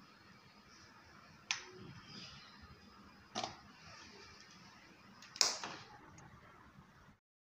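Two sharp clicks of a wall switch being flicked off and a power plug being pulled from its socket, then a louder knock about five seconds in, over faint room noise.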